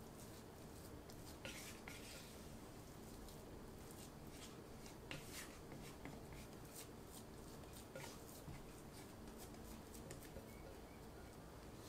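Faint, irregular scraping and soft knocks of a spatula working a stiff bread dough in a glass bowl.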